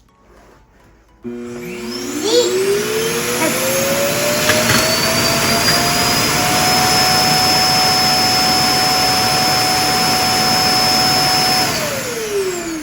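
Roomba i7+ self-emptying docking station's suction motor evacuating the robot's dustbin: it starts abruptly about a second in with a whine that rises in pitch over several seconds, runs steadily and loudly, then winds down near the end as the emptying finishes.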